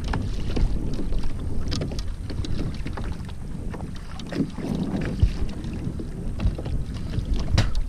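Wind buffeting the microphone and water slapping against a plastic pedal kayak's hull as it moves across open sea, with scattered small knocks.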